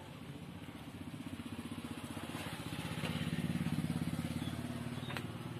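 A motor vehicle engine running with a fast low pulse, growing louder to a peak about three and a half seconds in, then easing off as it passes by.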